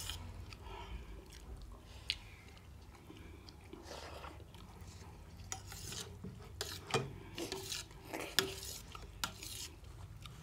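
A metal spoon scraping and clicking against a steel plate as rice is mixed and eaten, with scattered clicks that come more often in the second half.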